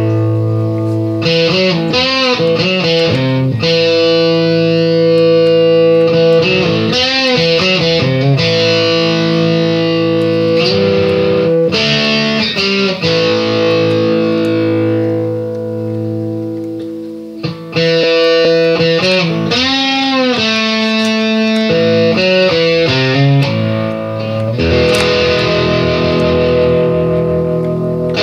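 Background music led by an electric guitar with effects, playing held notes that bend and waver.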